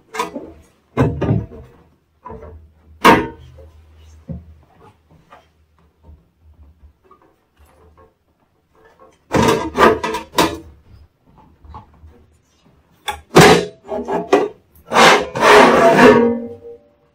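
Form-fitted steel cover panel of a UPS being worked loose and pulled off by hand: a series of sharp metal clunks and knocks, then a longer rattling scrape near the end as the panel comes free.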